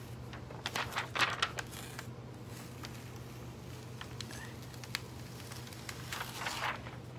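Clear plastic foil carrier sheet crinkling as it is peeled off a T-shirt after heat-transferring foil onto the fabric. The crinkling comes in short bursts about a second in and again near the end, over a low steady hum.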